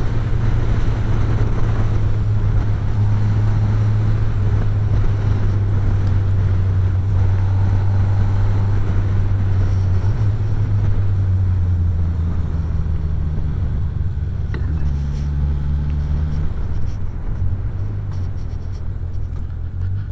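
Motorcycle engine running on the road, a steady low drone with wind rush. Its pitch shifts several times as the speed changes, then it settles lower and a little quieter near the end as the bike slows.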